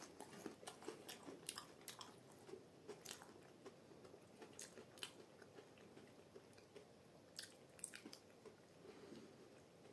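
Faint chewing of a nugget close to the microphone: soft crunching clicks, thickest in the first few seconds, then scattered.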